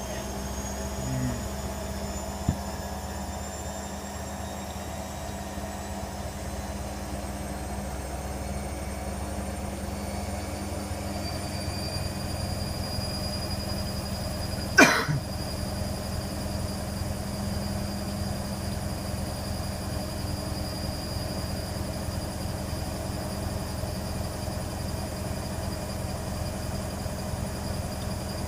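Hoover Nextra HNWL7146 washer dryer running steadily with its motor whining, the whine rising slowly in pitch for the first half and then holding steady. There is a sharp click about two and a half seconds in and a louder single knock about halfway through.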